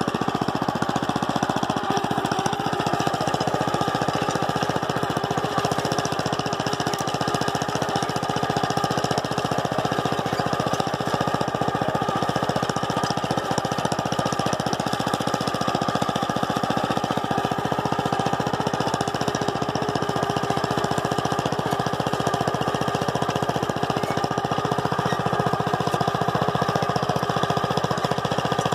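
Small gasoline engine of a Planet Jr BP1 walk-behind tractor running steadily under load as it pulls a three-row seeder across tilled soil.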